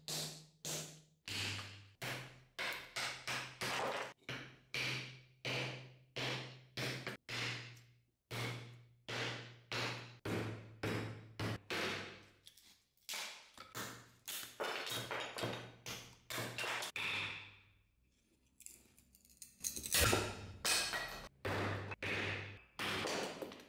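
A restored 19th-century axe chopping and splitting small pieces of wood on a chopping block, struck repeatedly about two times a second, each blow a sharp chop into the wood. The strikes pause briefly about three quarters of the way through, then resume.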